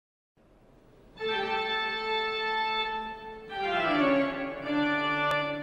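Opening music of sustained organ-like keyboard chords, coming in about a second in and changing chord twice, the first change sliding downward. A single sharp click near the end.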